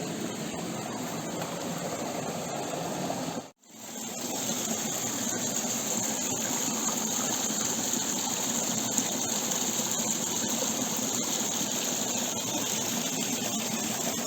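Creek water flowing in a steady rush. The sound breaks off for a moment about three and a half seconds in, then carries on a little louder and hissier.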